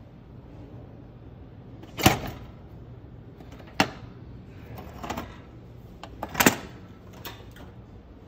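Sharp metal clanks and knocks from an electric range being handled: a coil burner moved in its drip pan and the oven door pulled open. There are about five knocks, the loudest about two seconds in and just after six seconds.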